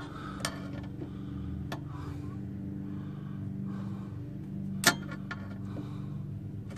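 Pliers working at a plastic zip tie, giving a few sharp clicks, the loudest about five seconds in, over a steady low mechanical hum.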